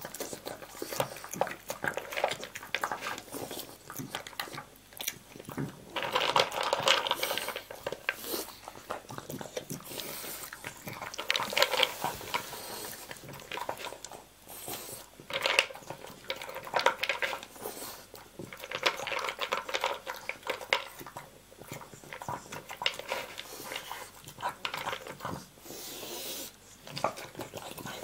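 A dog eating dry kibble from an anti-gulp slow-feeder bowl: irregular crunching and clicking as it bites the food out from between the bowl's raised knobs, with the bowl knocking and scraping. The eating comes in louder bouts several times.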